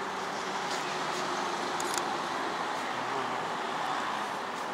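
Steady background noise of city traffic, an even hiss that does not change.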